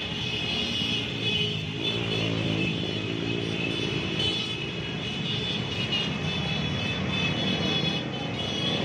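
A convoy of many motor scooters and small motorcycles riding past, their engines running steadily, with a continuous high-pitched tone held above the engine noise.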